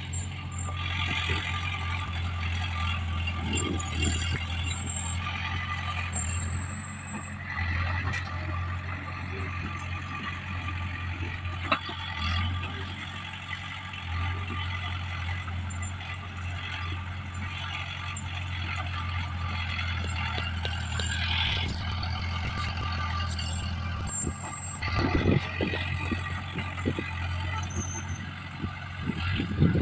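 Komatsu D20PL crawler bulldozer's diesel engine running steadily, with knocks and clanks from the machine as it works, including a burst of clanking about 25 seconds in and more near the end.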